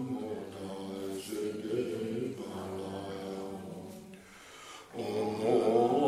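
Low-pitched Buddhist mantra chanting, a drawn-out recitation on held notes. It thins to a brief pause about four seconds in and comes back louder near the end.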